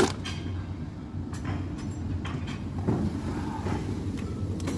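Old Hoover vacuum cleaner being handled and turned over, giving a few clicks and knocks over a steady low rumble.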